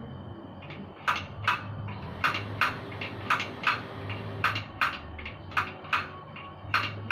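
Sharp clicking taps, about a dozen, mostly in pairs that repeat roughly once a second, over a faint low hum.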